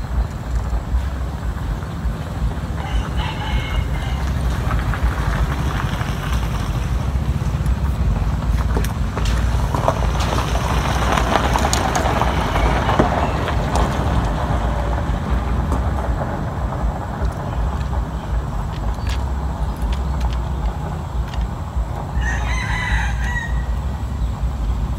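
A rooster crowing, once about three seconds in and again near the end, over a steady low rumble.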